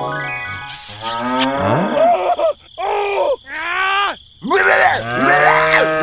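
A calf mooing about four times in a row, each moo rising and then falling in pitch.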